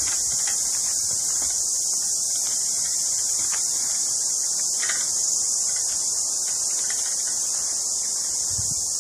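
Steady, high-pitched chorus of insects, such as cicadas or crickets, holding one even level throughout.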